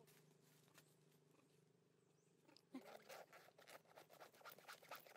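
Faint, quick clicks and crackles starting a little before halfway, with one brief squeak where they begin, over a faint low hum.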